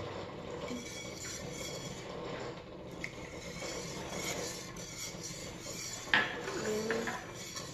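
Wire whisk stirring milk in a slow cooker crock, the metal wires scraping and rubbing against the inside of the pot, with one sharp knock about six seconds in.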